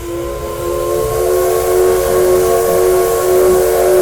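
Steam locomotive whistle, likely the C62 2's, sounding one long, steady blast: a chord of several tones held together over the hiss of escaping steam.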